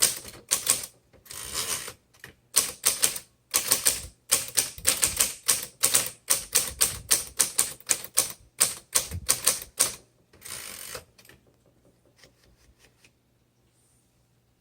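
Manual typewriter keys, a 1936 Royal Model O, striking the platen in an irregular run of keystrokes, broken by a couple of longer rasping sounds about a second in and near ten seconds. The typing then thins to a few faint ticks and stops.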